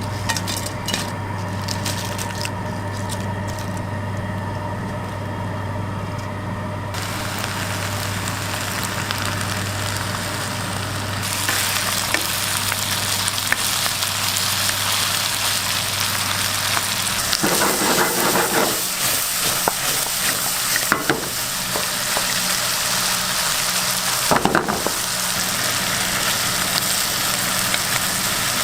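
Food sizzling in a hot pan on a street-food cooking station, the sizzle growing louder about seven seconds in and again about eleven seconds in. A few short clattering knocks come through the second half. A steady low hum underneath stops about seventeen seconds in.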